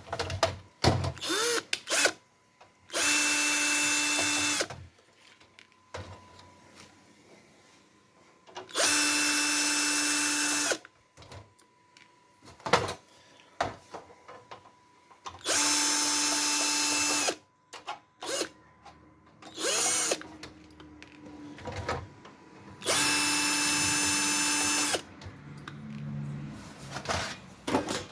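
Small electric screwdriver or drill motor running at a steady pitch in four separate runs of about two seconds each, with clicks and handling knocks between them, as screws are driven on the DVR unit.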